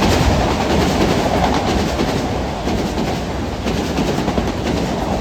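Metro-North commuter train passing at speed: a steady rumble of wheels on rail with a run of sharp clacks as the wheels cross rail joints.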